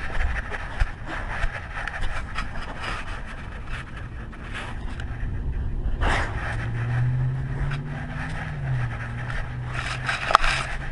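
Scraping and rubbing of a collar-mounted GoPro Hero3 as the dog walks, with scattered clicks. A low hum swells and fades in the second half.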